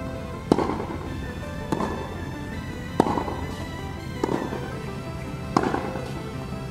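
Tennis ball struck back and forth in a practice rally: five racket hits about every 1.3 seconds, louder and fainter in turn, each with a short echo off the indoor hall. Music plays underneath.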